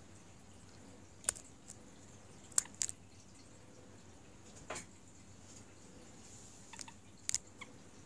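Young Society finch × zebra finch hybrids in a hanging fleece nest tent, with a scattered handful of short, sharp sounds, some in quick pairs, over a faint steady hum.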